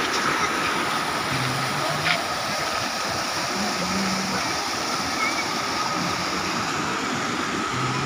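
Steady rushing of a stream in flood, muddy water pouring past and over a broken concrete roadside embankment and causeway.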